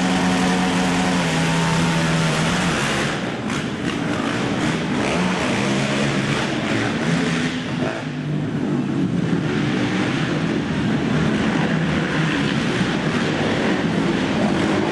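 Several racing quad (ATV) engines running and revving together. A steady engine note is held for the first couple of seconds, then the engine pitches shift up and down as the riders accelerate and back off.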